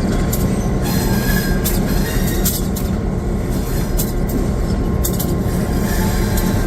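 Steady low rumble of an EMD SD9M diesel locomotive running, heard from inside its cab, with a few sharp clicks and rattles scattered through it.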